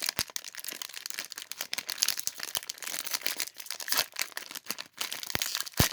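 Plastic Lego minifigure blind pack crinkling as it is handled and torn open, with a couple of sharp clicks near the end.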